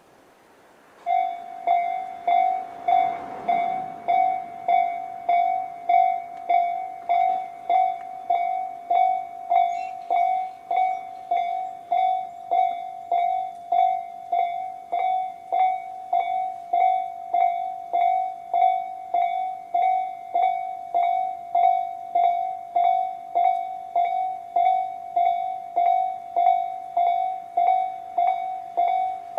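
Japanese level crossing electronic warning bell of the Tobu Railway 'sound C' slow-tempo type, starting about a second in. It rings a steady, evenly paced ding-ding a little under two strikes a second, the signal that a train is approaching and the crossing is closing.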